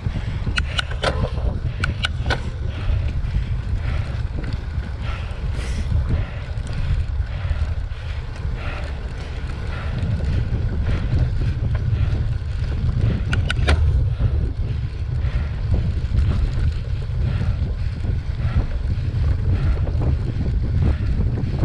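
Wind buffeting the microphone and a low rumble while a cyclocross bike rides over grass, with a few sharp clicks and rattles from the bike near the start and about two-thirds of the way in.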